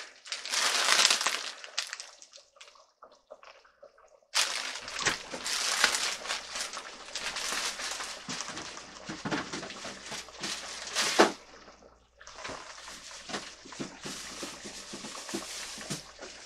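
Pot of yellow chicken curry boiling hard: a steady bubbling broth with many small pops, one louder pop about eleven seconds in. The bubbling drops almost away for a couple of seconds near the start and comes back suddenly.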